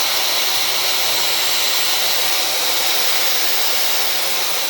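Dyson hair dryer with a diffuser running steadily on its lowest heat setting, giving a constant rushing hiss of air with a high whine.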